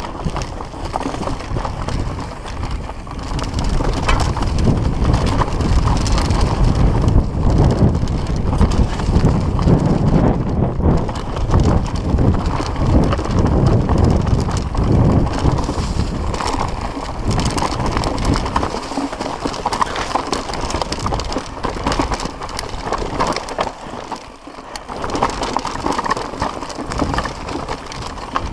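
Mountain bike descending a rough dirt and rock trail at speed: tyres rumbling over the ground and the bike rattling with a rapid clatter of small knocks. The rumble and clatter are heaviest through the first two-thirds, then ease off on a smoother stretch.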